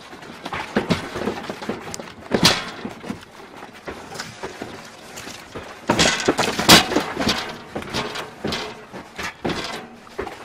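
Household furniture, shelves and glass cabinet doors rattling and knocking under earthquake shaking: an irregular clatter of knocks, loudest about two and a half seconds in and again around six to seven seconds in.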